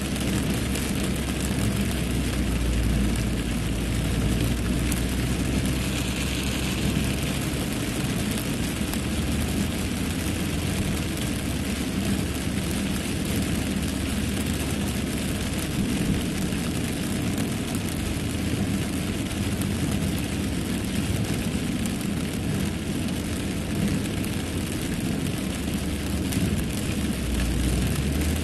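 Steady rumble and wash inside a moving car's cabin in a downpour: the engine and tyres run through standing water on the road, with rain hitting the windscreen and body. A brief louder hiss comes about six seconds in.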